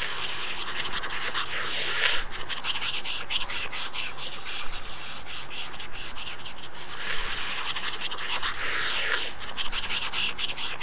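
Harsh noise-music soundtrack of dense crackling and scratching, thick with rapid clicks, swelling twice into a louder hiss, about a second in and again about seven seconds in.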